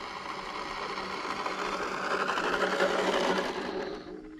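Electric motor and drivetrain of a radio-controlled drag car whirring as the car drives back in. It grows louder over about three seconds and then cuts off near the end.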